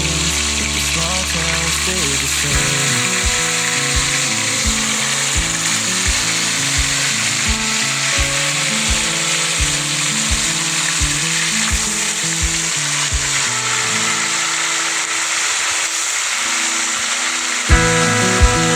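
Instrumental country-pop backing music with a steady beat, over a steady hiss of food frying in oil in a skillet.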